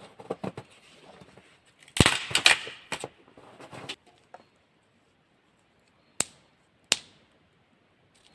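Dry sticks and branches being handled: a loud cluster of knocks and crackling about two seconds in, then two sharp single cracks a little under a second apart.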